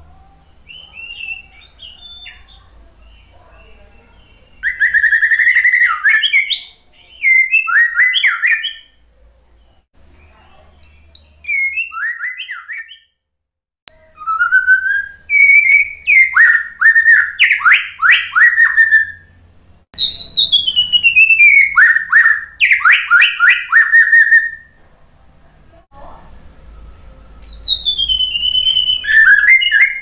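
White-rumped shama (murai batu) singing loud, varied phrases: clear whistles and falling glides that run into fast strings of short notes, in bursts with brief pauses between them.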